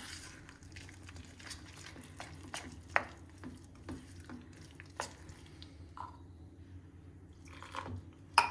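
Gram-flour batter being stirred with a spoon in a bowl: wet squishing, with irregular light taps of the spoon against the bowl.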